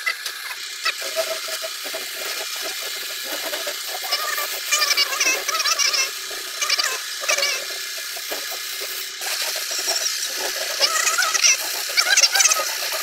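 Steady hiss and hum of a compressed-air spray-painting rig running, with wavering chirps coming and going over it.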